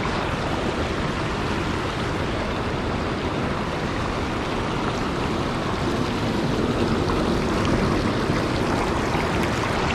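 Water rushing over a spillway's rocks, a steady, unbroken rush.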